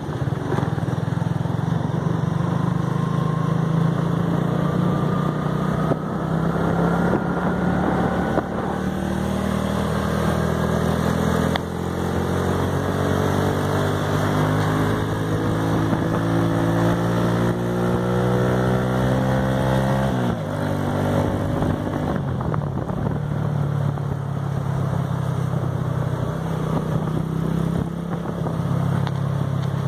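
Motorcycle engine running under way. Its note climbs steadily for several seconds as the bike accelerates, drops suddenly about two-thirds of the way through, then settles into a steady run.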